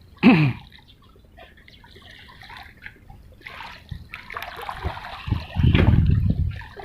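Water sloshing and splashing, building to its loudest about five to six and a half seconds in. A short loud sound that falls in pitch comes just after the start.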